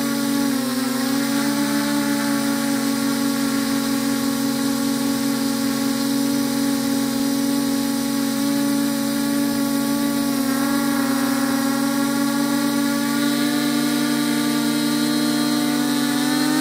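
Multirotor drone's motors and propellers whining steadily, heard close from the drone's own camera, the pitch shifting a little a few times as it climbs and manoeuvres.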